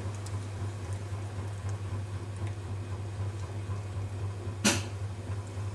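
Electric potter's wheel running with a steady low hum while wet clay is worked on it by hand. One brief, sharp noise, the loudest sound, comes about three quarters of the way through.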